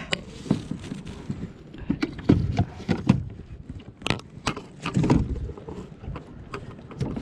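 Irregular clicks and knocks of hands and fishing gear moving about on a plastic sit-on-top kayak, with dull low thumps of wind buffeting the microphone.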